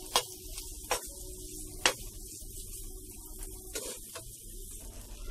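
A spoon stirring thick bread halwa in a non-stick pan. The spoon knocks against the pan three times about a second apart, then twice more faintly near the end, over a faint steady hiss.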